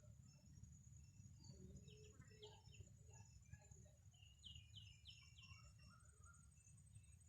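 Faint birdsong: scattered chirps, including a quick run of four falling notes a little past halfway. Underneath are a low steady rumble and a thin, steady high-pitched tone.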